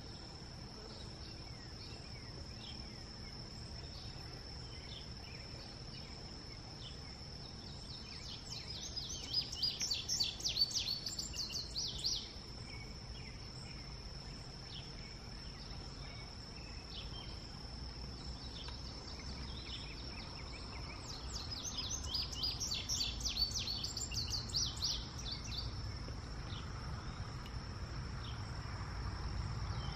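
Male indigo bunting singing two bouts of quick, high, paired notes, each lasting a few seconds, about a third of the way in and again about two-thirds through. Under them runs a steady high insect drone.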